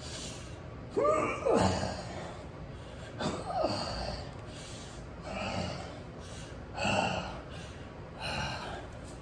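A man's hard, strained exhalations and grunts, one with each rep of resistance band pull-downs, about five in a row roughly every second and a half, the first ones falling in pitch.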